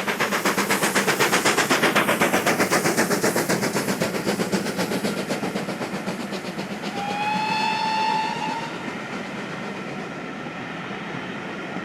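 Steam locomotive running by with fast, evenly spaced exhaust beats that fade as it passes. About seven seconds in, its steam whistle gives one blast of under two seconds.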